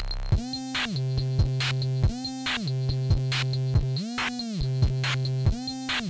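Electronic music: a synthesizer bass line that swoops up and down in pitch over a steady beat.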